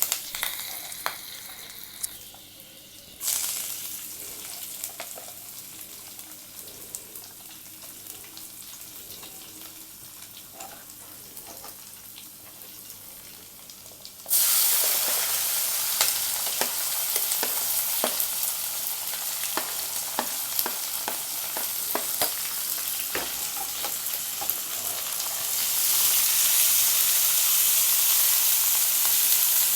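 Food sizzling in hot oil in a pan while a spatula stirs it, with scattered scraping clicks. The sizzle is soft at first, suddenly grows much louder about halfway through, and gets louder again near the end.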